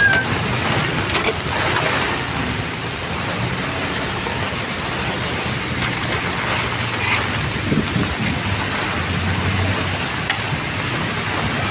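Heavy typhoon rain pouring down on a paved street, a steady hiss, with a low rumble underneath.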